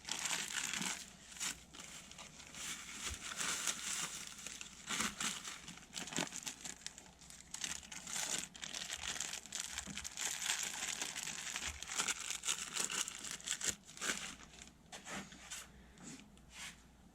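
Plastic packaging crinkling and rustling, with scattered light clicks and knocks, as a new VVT solenoid is handled and unwrapped. It dies down near the end.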